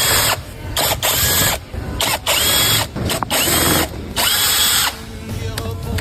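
Power wrench run in about five short bursts of roughly half a second each, every burst spinning up with a brief rising whine, as fasteners are undone or run in.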